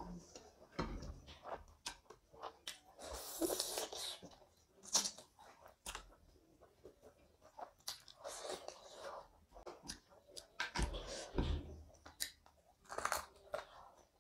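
Close-miked chewing of a handful of rice and curry eaten by hand: wet mouth sounds with irregular sharp clicks and short bursts, the loudest about four seconds in and again near eleven seconds.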